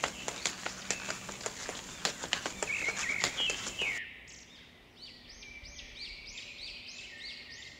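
Footsteps crunching on dry dirt, heard as a quick, irregular run of clicks. About halfway through this gives way to a quieter bird chirping over and over, about two calls a second.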